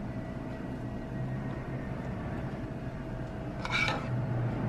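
Steady low background hum, with one brief clatter of kitchen utensils near the end.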